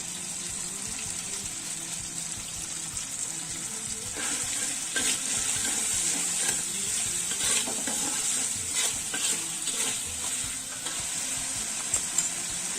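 Chilli paste sizzling steadily in hot oil in a pan, with a spatula scraping and stirring it in a series of sharp clicks and scrapes from about four seconds in until near ten seconds.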